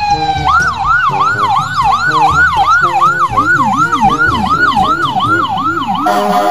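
Ambulance siren sound, a fast wail sweeping up and down about three times a second after a short falling tone. A second, lower-pitched wail joins it about three seconds in.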